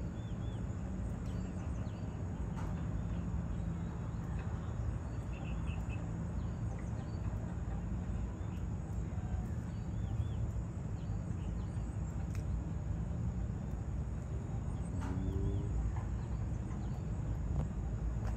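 Open-air ambience: a steady low rumble with faint, scattered chirps of small birds flying overhead.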